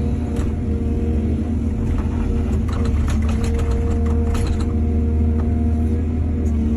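Heavy diesel engine of earthmoving machinery running steadily, with a run of short clatters and knocks from about two to four and a half seconds in.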